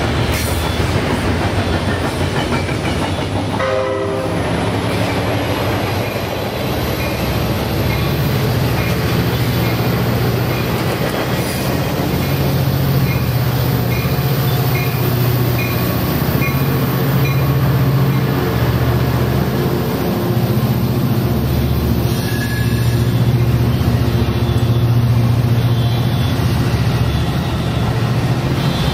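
Amtrak F59PHI diesel locomotive and its Pacific Surfliner bilevel cars rolling in along the platform while a double-stack container freight train passes on the next track: steady low diesel rumble and rail noise, with a short horn blast about four seconds in.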